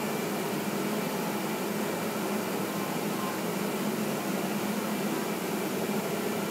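Steady machine hum with an even hiss from a driven-wheel fabric-cutting machine running, with no separate strikes or changes.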